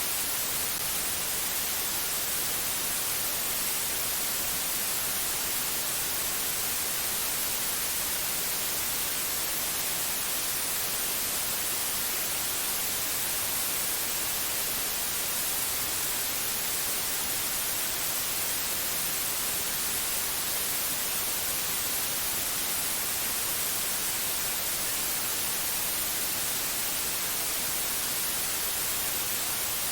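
Steady, unbroken white-noise hiss, heaviest in the high treble.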